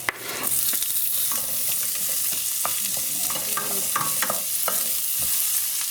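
Onion tipped into hot bacon grease and garlic in a frying pan: a knock, then the sizzle jumps up about half a second in and holds steady, with a utensil clicking and scraping against the pan as it is stirred.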